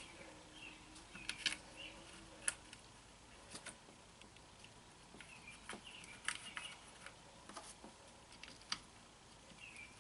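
Scattered light clicks and taps of small tools and screws against a Chevy throttle body as a new throttle position sensor is fitted, the loudest two sharp ticks about a second and a half and two and a half seconds in. A few faint high chirps come and go.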